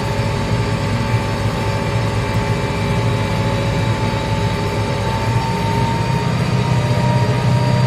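Tractor engine running steadily under load while pulling a plough through the field, a low drone with a steady whine above it.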